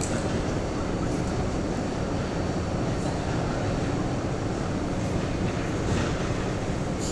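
Steady din of factory machinery: a dense, even rumble with a few faint knocks here and there.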